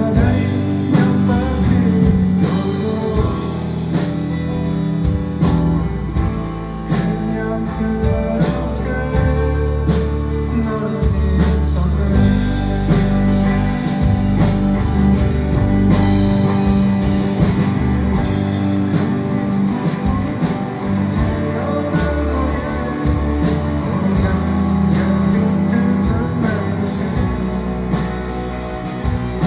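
Live rock band playing, led by guitar over a steady drumbeat, with some singing.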